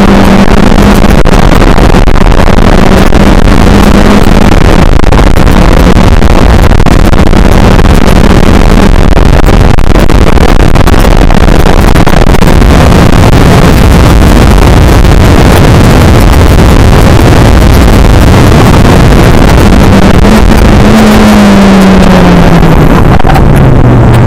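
Skip Barber open-wheel race car's engine running hard at speed, very loud, with heavy wind noise over it. The engine note holds fairly steady most of the way, then rises briefly and falls to a lower pitch near the end as the car slows.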